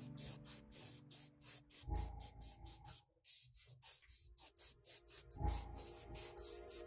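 Background music: sustained chords under a fast, even, hissing percussion rhythm of about five strokes a second, with a brief total dropout about three seconds in.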